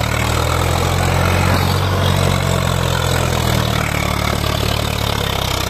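Swaraj 744 XT tractor's three-cylinder diesel engine running steadily as the tractor drives over rough ground, easing slightly about four seconds in.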